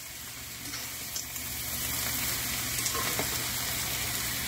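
Shredded cabbage, carrots and celery with shrimp, onion and garlic sautéing in olive oil in a pan: a steady sizzle that grows slightly louder over the first second or two, with a few faint clicks.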